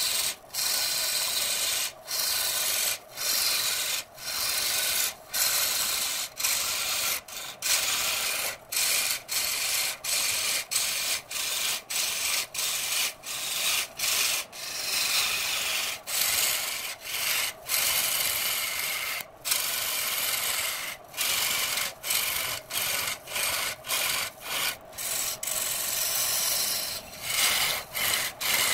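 Hand-held turning tool cutting a spinning redwood blank on a wood lathe: a harsh, scraping hiss of shavings being torn off, broken by short gaps every second or so.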